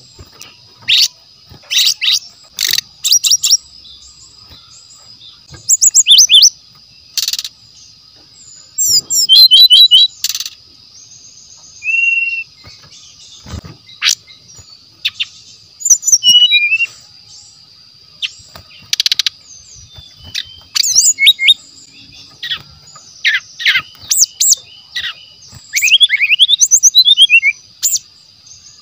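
Brown-chested jungle flycatcher singing: short bursts of sharp, high whistled notes and quick falling sweeps, in phrases separated by pauses of a second or more. A steady high-pitched whine continues underneath.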